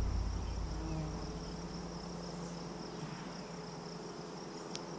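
Insects droning steadily in a high, even pitch, with one faint click near the end.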